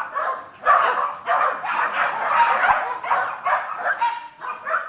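Several dogs barking and yipping at once in a dense, overlapping chorus, set off by a newcomer arriving.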